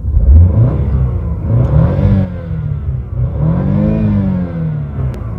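A BMW petrol car engine revved in park, the revs rising and falling twice about two seconds apart, the second rev going higher (to around 5,500 rpm), over a steady idle rumble.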